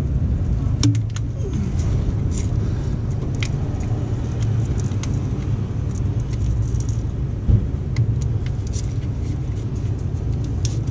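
A steady low rumble, with scattered light clicks and small knocks as heavy starter cables are handled under the bus.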